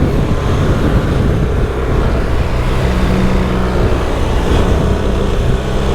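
BMW R1300GS boxer-twin engine running hard on track over a loud rush of wind. The engine note shifts for the first couple of seconds, then holds steadier.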